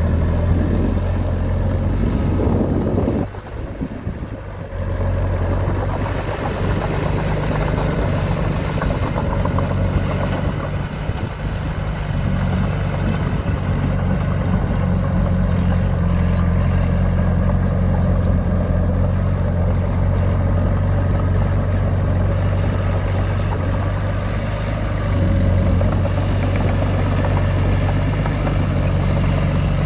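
Diesel engine of earthmoving equipment running steadily, its level dipping briefly about three seconds in before settling back.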